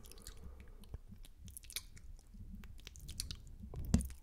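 Close-miked wet mouth sounds: spitty lip and tongue clicks and smacks as fingertips are licked at the lips, with a louder pop near the end.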